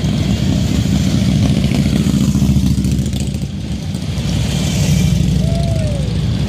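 Touring motorcycles rumbling past one after another at parade speed. Their engine sound eases about halfway through, then swells again as the next bike goes by.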